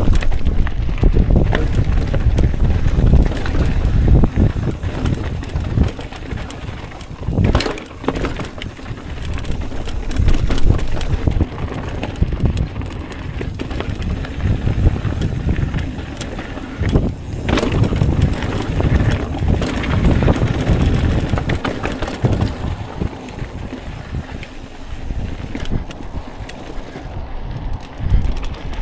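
Mountain bike riding down a rough, rocky trail: wind rushing over the microphone, with tyre noise and the bike rattling over rocks. There is a sharper knock about seven seconds in and another about seventeen seconds in.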